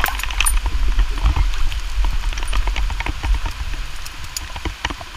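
Irregular taps and clicks over a steady low rumble.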